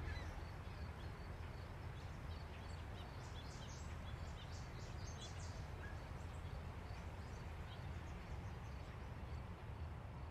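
Faint outdoor ambience: a steady low rumble with scattered short bird chirps, most of them clustered around the middle.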